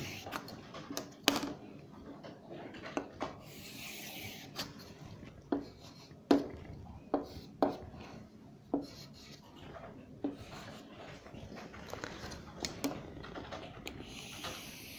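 A pen drawing straight lines on a writing surface: scratchy strokes a second or so long, with about a dozen sharp taps scattered between them.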